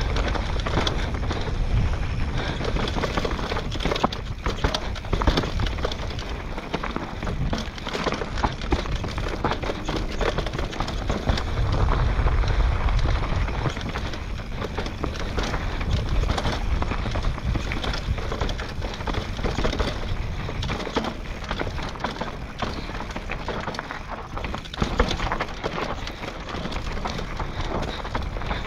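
Downhill mountain bike descending a rough trail: a dense, steady clatter of the bike rattling over the ground, full of sharp knocks, with wind rumble on the microphone that swells about halfway through.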